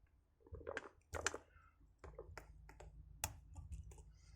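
Lock pick clicking and scraping against the pins and warding inside a vintage Schlage padlock under tension, in a run of irregular sharp clicks.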